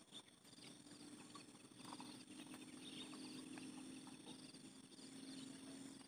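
Faint ambience of insects trilling steadily, with a few short scattered chirps and a low steady hum that comes in about two seconds in.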